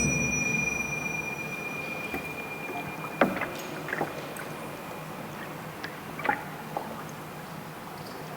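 A struck bell-like metal percussion instrument ringing with one steady high tone that fades out about five seconds in, a low thud dying away at the start. A few light, scattered clicks and taps follow.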